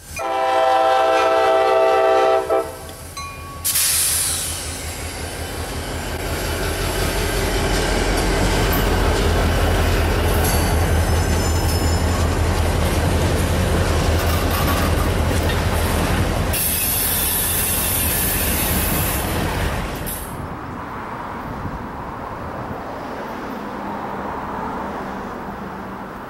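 CSX diesel locomotive's multi-chime air horn sounding one long chord of about two and a half seconds, then a short toot. A freight train follows, passing with loud wheel noise and a rhythmic low engine rumble, then fades to a quieter rumble after about twenty seconds.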